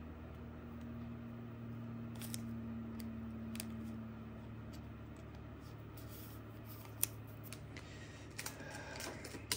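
Light plastic clicks and rustles of a trading card being handled into a clear plastic sleeve and rigid top loader, scattered and more frequent near the end, over a low steady hum.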